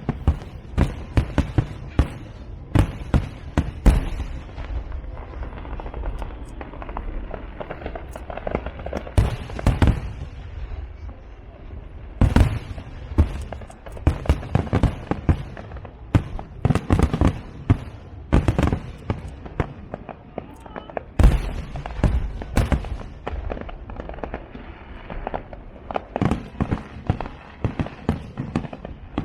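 Fireworks display: rapid, irregular series of loud bangs from bursting shells, coming in clusters with short lulls between them, over a steady crackling hiss.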